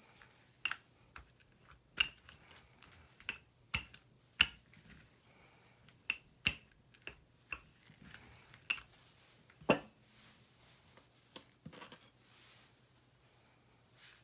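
Wooden rolling pin rolling out a ball of bread dough on a textured silicone baking mat, with irregular sharp clicks and knocks as the pin meets the mat, about one or two a second. The clicks thin out near the end, where a softer rustle follows.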